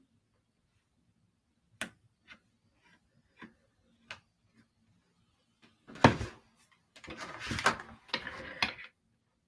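A paper card shifted and turned around on a wooden tabletop: a knock about six seconds in, then nearly two seconds of sliding and rubbing. Before that, a few faint taps.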